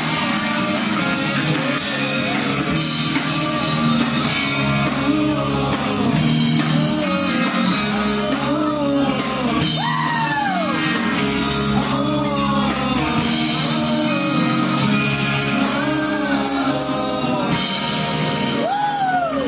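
Rock band playing live with a lead singer, the voice sliding up and down through long high notes around the middle and again near the end.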